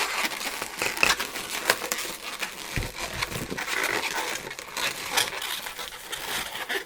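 Latex modelling balloons handled in the hands, a dense crinkling and rubbing with many small clicks and squeaks.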